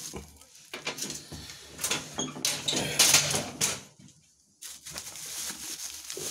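Crinkling and rustling of a plastic bag and dry plant stems as a bagged potted plant is handled, with many small crackles and a short pause about four seconds in.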